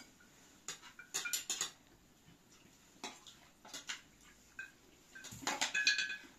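Metal spoons and forks clinking and scraping against china plates and a serving pan as people serve themselves food and eat. The clinks come in small scattered clusters, some ringing briefly, with the busiest and loudest run near the end.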